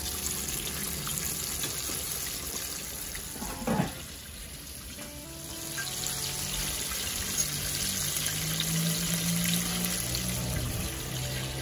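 Butterfish fillets deep-frying in hot oil: a steady sizzling and bubbling. A brief knock about four seconds in, and soft background music comes in over the second half.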